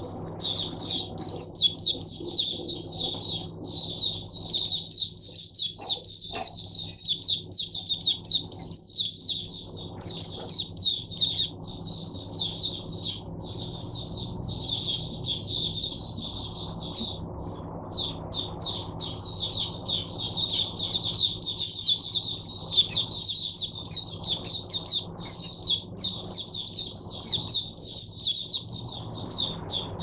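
White-eye (mata puteh) singing a long, fast twittering song of high chirps. It breaks off briefly about five seconds in and again around seventeen seconds, then carries on.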